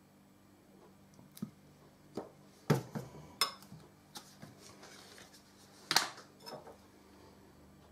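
Several sharp clinks and knocks: a metal dessert spoon against a china bowl and plastic squeeze bottles being handled and set down on the worktop. The loudest knocks come a little under 3 seconds in and again about 6 seconds in.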